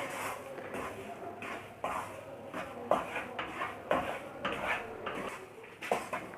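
Spatula scraping against a pan while stirring wheat flour roasting in ghee, with a sharp stroke roughly once a second.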